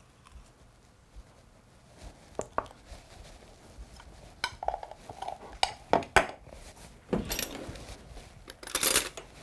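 A metal measuring spoon clinking and scraping against a glass measuring jug while a tablespoon of sticky molasses is worked off it into broth. It is quiet at first; light clinks begin about two seconds in, a few sharp clinks come around the middle, and denser scraping follows near the end.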